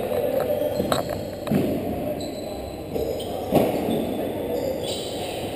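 Lacrosse balls knocking off the floor, boards and goalie during a shooting warm-up, several separate echoing knocks, the loudest about three and a half seconds in, over a steady arena hum.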